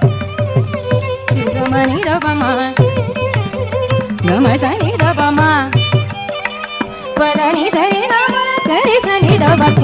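Carnatic music: a heavily ornamented melody sliding between notes over a steady drone, with frequent drum strokes.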